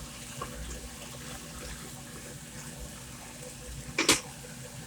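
Steady sizzling of a stir-fry in a pan as pasta is mixed in with the nuggets and vegetables, with one sharp clank of a utensil against the pan about four seconds in.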